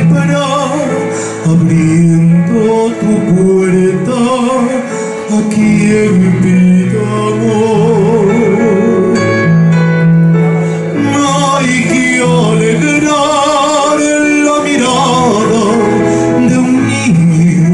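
A man singing a Spanish Christmas carol (villancico) with vibrato into a microphone, amplified, accompanied on a Korg electronic keyboard.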